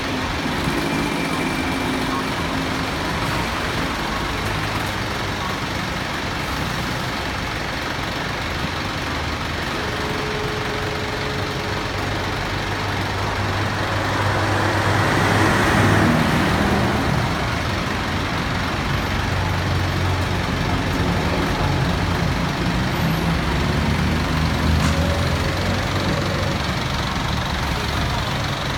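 A large vehicle's engine running steadily, with a louder rush of noise that swells and fades around the middle.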